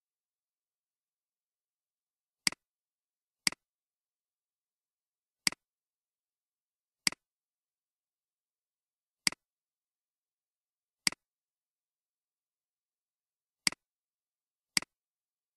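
Computer mouse button clicking eight times at an irregular pace, single sharp clicks one to two and a half seconds apart, with dead silence between them.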